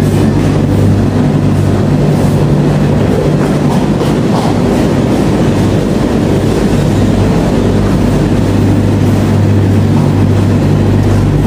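Steady low hum and rumble of laundromat washing machines and dryers running, loud and unbroken.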